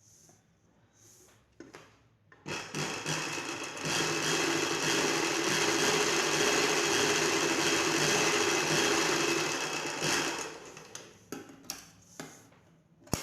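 Sewing machine stitching in one continuous run: it starts about two and a half seconds in, builds up to a steady speed and stops about ten seconds in, followed by a few light clicks. It is sewing an extra strip of cloth onto a blouse to lengthen it.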